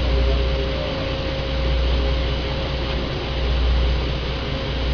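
Small boat's engine running steadily, a low rumble with a faint steady hum above it and a haze of wind and water noise.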